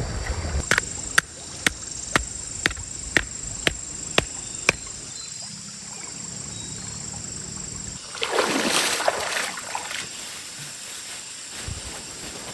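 A run of sharp clicks, about two a second for four seconds, then a quieter stretch and a loud rush of splashing water about eight seconds in.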